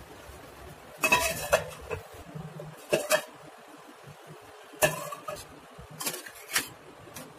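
A metal spoon knocking and clinking against a stainless-steel saucepan in about five short bursts a second or two apart, the pan ringing briefly after each knock.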